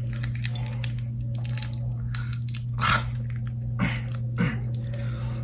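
A small plastic condiment packet of honey roasted barbecue sauce being tugged and torn open by hand, giving a few short crinkles and tearing sounds, the loudest about three seconds in, over a steady low hum.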